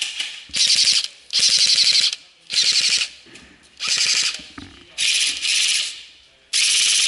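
Airsoft gun firing in short full-auto bursts, about six in a row, each a rapid rattle of shots lasting under a second with brief pauses between.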